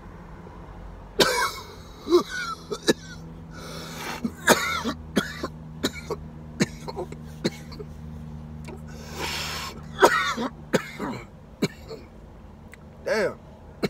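A man coughing hard in repeated fits, with throat clearing and raspy exhales in between, from a long draw on a Delta 8/Delta 10 vape pen.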